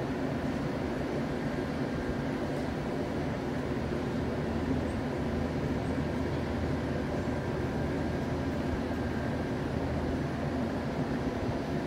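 Steady background rumble and hum of vehicles and machinery, with a few faint steady tones above it. Nothing starts or stops.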